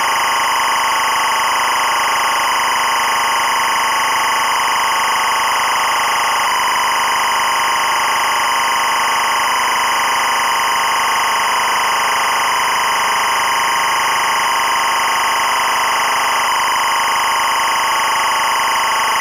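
EBU linear timecode (LTC) audio signal at 25 frames per second: a steady, unbroken buzzing warble at constant level. It encodes the running hours, minutes, seconds and frames of the clock, and is used to sync cameras and sound.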